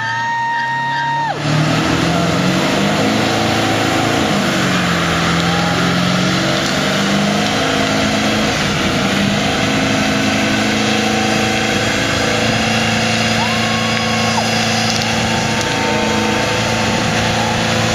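Ford F-series pickup doing a burnout: the engine revs up and down for the first few seconds, then holds at high revs with the rear tyres spinning on the pavement. A brief horn-like tone sounds at the very start.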